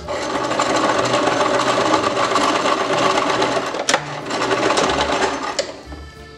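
Electric home sewing machine running at a steady speed, stitching a zigzag seam around the leg hole of a knit sweater. There is a brief click and hitch about four seconds in, and the machine stops shortly before the end.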